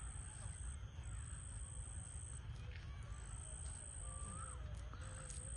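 Outdoor ambience: a steady low rumble with a few faint bird calls, and a high-pitched whine that breaks off every second or two.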